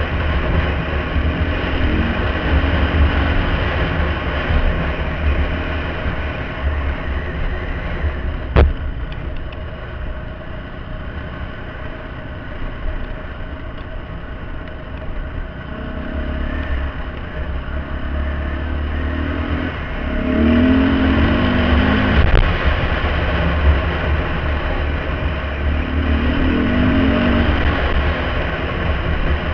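Dirt bike engine running under way on a trail, its revs rising several times in the second half, over a steady low rumble. A single sharp knock about eight seconds in.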